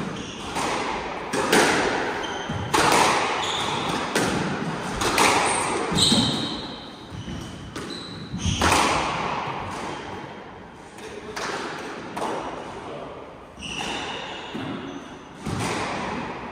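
Squash rally: the ball struck by the players' rackets and hitting the court walls, about ten echoing hits at irregular intervals. Short squeaks of court shoes on the wooden floor come between the hits.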